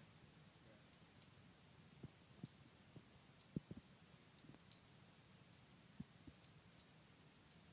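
Two Beyblade spinning tops clashing in a plastic stadium: faint, irregular clicks and clacks, the loudest about three and a half seconds in.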